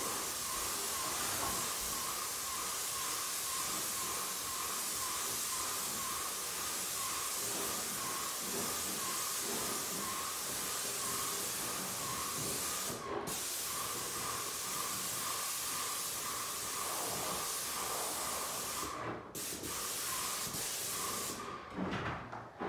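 Paint spray gun hissing steadily as it sprays paint onto a wooden plank wall. The spray cuts off briefly twice, about thirteen and nineteen seconds in, and stops near the end.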